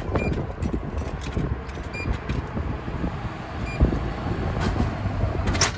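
Drink vending machine being used beside a road, over a steady low rumble of traffic. A few short high beeps and clicks come as the selection is made, then a sharp clatter near the end as the plastic bottle drops into the dispensing tray.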